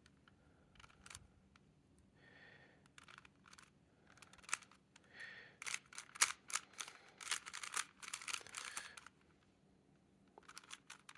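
Plastic Rubik's Cube layers being turned by hand: scattered clicks and clacks, then a quick flurry of turns from about four to nine seconds in.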